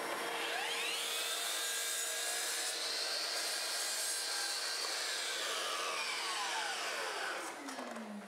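Makita sliding miter saw running at full speed while a board is cut to length, its whine steady; over the last few seconds the pitch falls as the blade spins down.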